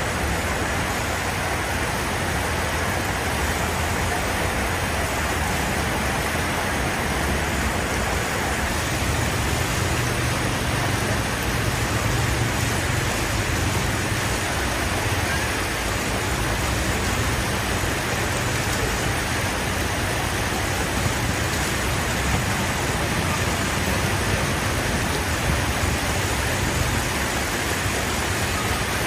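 Steady road-traffic noise: a motor vehicle's engine running low under a constant hiss.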